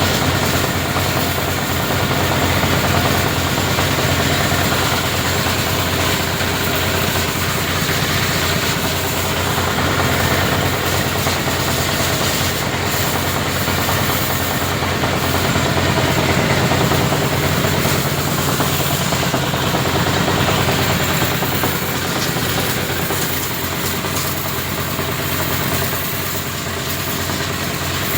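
Motorbike-wash high-pressure washer running steadily: a constant motor hum under the hiss of the water jet.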